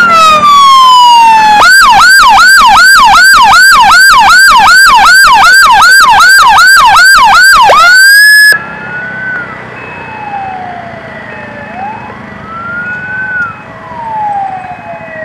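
Electronic emergency siren very close and loud: a long falling tone, then a fast yelp of about three rising-and-falling chirps a second. It cuts off suddenly about eight seconds in, leaving a fainter siren wailing slowly up and down.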